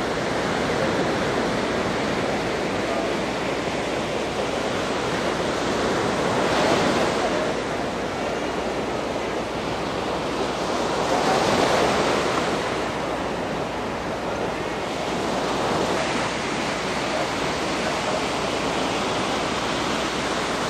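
Waves breaking on a beach: a steady wash of surf that swells louder every few seconds as each wave comes in.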